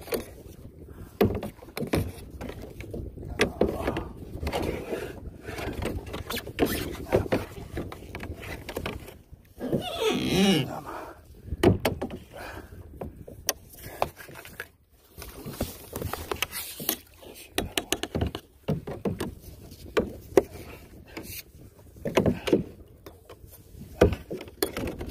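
Irregular knocks, bumps and clatter of gear and hands working on a fishing kayak while line is hauled in by hand, with a brief pitched sound that bends up and down about ten seconds in.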